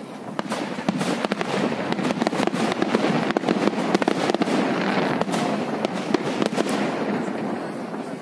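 Aerial firework shells bursting in a dense run of bangs and crackles, many sharp reports following closely on each other.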